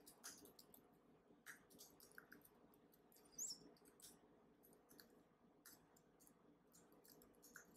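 Faint computer keyboard typing: scattered soft key clicks at an irregular pace, with a brief high squeak about three and a half seconds in.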